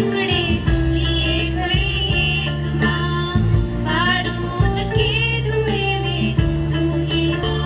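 Two girls singing a welcome song into microphones, amplified through loudspeakers, over an instrumental accompaniment of held bass notes that change about once a second.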